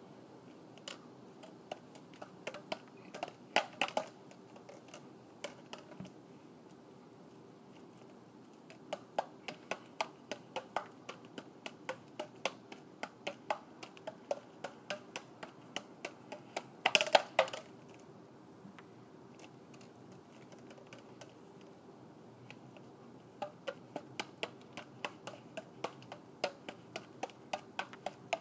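Juggling clubs slapping into the hands as they are caught during a five-club pattern: a quick, even run of light clicks about three a second. A louder cluster of knocks comes a little past halfway, and there is a stretch with only scattered clicks after it.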